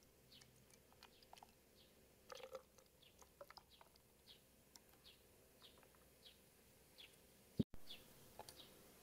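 Faint bird chirping: short falling chirps repeated about every two-thirds of a second over near silence. A few light clicks come about two seconds in, and a single sharp click comes near the end.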